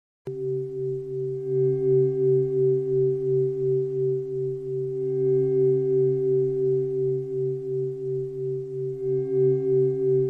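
Steady electronic drone of a few pure, singing-bowl-like tones, starting abruptly just after the start and held throughout, wavering gently in loudness a couple of times a second.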